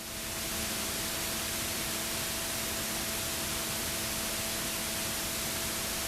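Steady, even hiss with a faint steady hum underneath, unchanging throughout.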